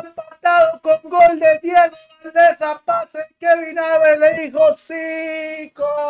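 A man singing loudly in short, held phrases, with one long held note near the end.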